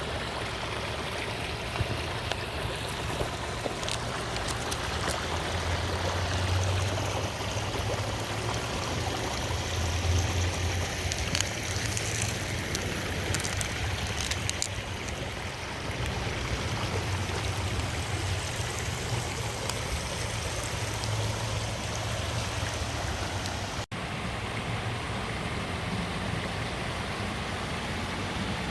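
Small creek running over rocks: a steady rush of flowing water, with a low steady hum underneath.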